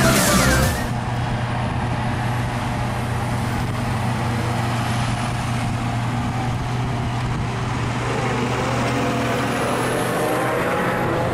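Electronic music cuts off about a second in, giving way to a Steyr tractor pulling a loaded push-off trailer, its engine running at a steady, even note as it drives up and passes close by.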